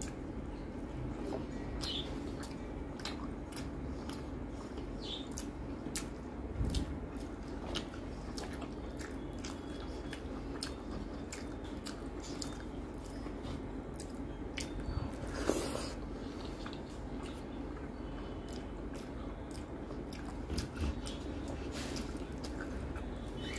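Close-miked eating: a person chewing mouthfuls of rice and egg curry, with frequent short wet mouth clicks, and fingers squishing and mixing rice on a steel plate.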